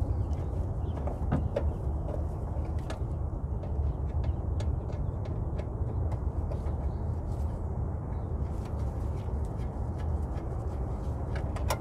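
Scattered light clicks and taps from hands working on the fittings inside a car's wheel arch, over a steady low hum.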